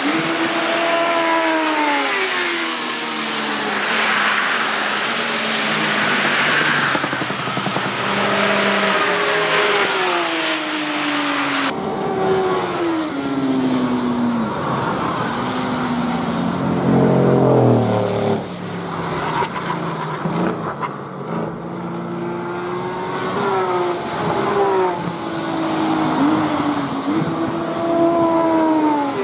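Motorcycles and sports cars passing one after another at speed, engines revving and falling in pitch through gear changes and as each goes by. The sound changes abruptly about twelve seconds in.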